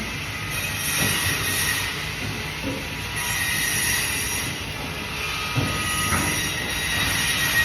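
Bandsaw running and cutting fish: a steady metallic whine with a few knocks, about a second in and again near 6 seconds.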